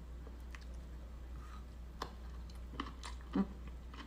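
A person chewing a mouthful of noodles, faintly, with a few small clicks and smacks over a low steady hum.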